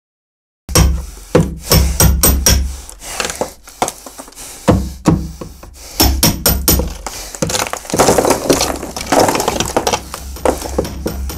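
Trailer soundtrack of sharp, wooden-sounding knocks and cracks in an irregular run over a low steady rumble, starting suddenly from silence about a second in, with a swell of noisy hiss near the end.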